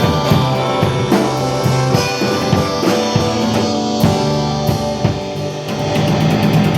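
Instrumental rock music, a band playing drum kit and guitar with no singing.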